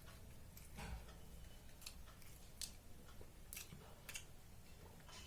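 Someone chewing a mouthful of chow mein noodles: faint, irregular wet mouth clicks and smacks, roughly one a second.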